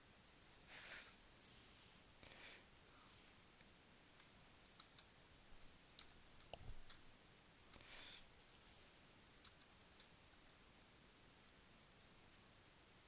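Near silence with faint, scattered computer mouse clicks and a few keystrokes.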